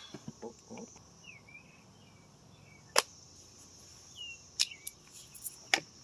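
Outdoor background of birds chirping over a steady high insect drone, broken by several sharp clicks; the loudest click comes about three seconds in, and a cluster follows near the end.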